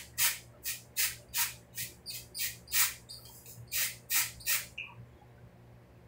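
A spray bottle of hair colour sprayed in a quick run of about a dozen short hissing bursts, two to three a second, onto a part line from a distance. The bursts stop a little over four and a half seconds in.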